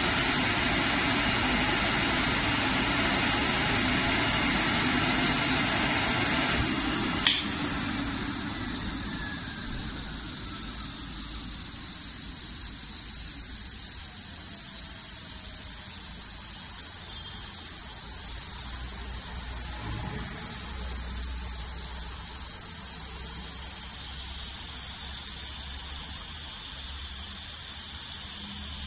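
Automatic digital fabric cutting machine running with a loud, steady rushing noise that stops with a sharp click about seven seconds in. A falling whine follows as it spins down, under a quieter steady hum.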